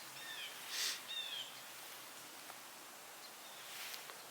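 Faint outdoor background with a small bird giving two short groups of curved chirps in the first second and a half, and a brief soft rustle just before the second group.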